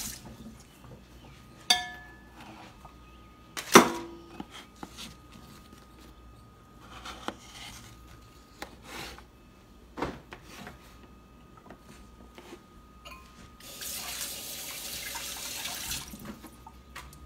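Dishes being handled in a stainless-steel kitchen sink: a ringing clink about two seconds in and a louder one about four seconds in, then scattered light knocks. The tap runs again for about two seconds near the end.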